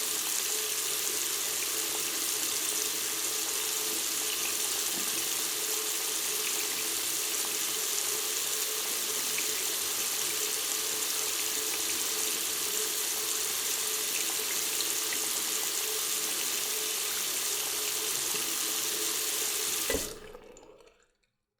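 Bathroom water tap left open, running steadily into a sink with a faint steady tone under the splash. About twenty seconds in a short knock sounds and the flow dies away within a second.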